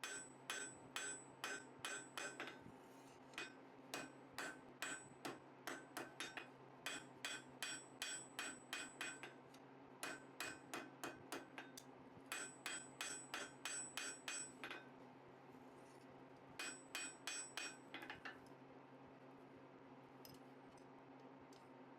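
Hand hammer striking hot 3/8 in mild steel square bar on an anvil, drawing out a forged arm: runs of ringing blows about two to three a second with short pauses. The hammering stops a few seconds before the end, leaving a steady low hum.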